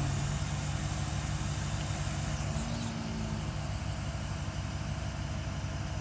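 Geoprobe direct-push rig's engine and hydraulics running steadily with a low hum while the rig pushes a PVC monitoring well back down into clay. A short, slightly higher hum joins for about a second midway.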